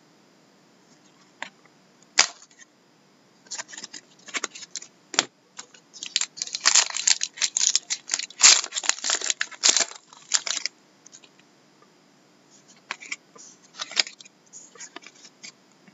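Trading-card pack wrapper being torn open and crinkled, a dense run of crackling from about six to ten and a half seconds in. Before and after it come scattered clicks of cardboard trading cards being handled and slid against each other.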